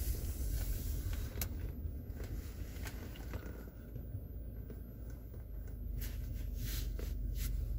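Low steady rumble of a car heard from inside its cabin, with a few faint clicks.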